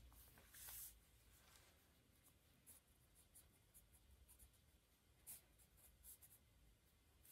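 Faint scratching of a pen on paper during a quick sketch: short light strokes every second or so, with a slightly longer scrape in the first second.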